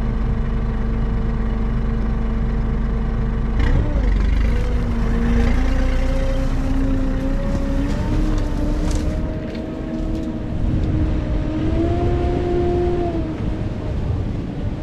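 Amphibious off-road vehicle engine running under load. The sound changes abruptly about three and a half seconds in, after which the engine pitch climbs in several steps.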